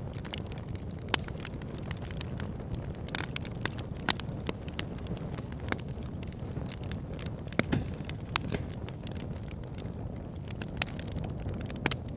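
Wood fire burning in a fireplace: a steady low rush of flame with scattered sharp crackles and pops from the burning logs, a few louder pops standing out among them.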